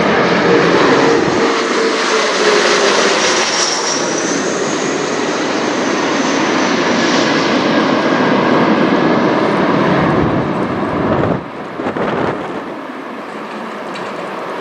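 Mitsubishi CRJ900 regional jet's two rear-mounted turbofans passing overhead as it comes in to land: a loud jet roar with whining tones that fall in pitch as it goes by. The roar drops off about eleven seconds in.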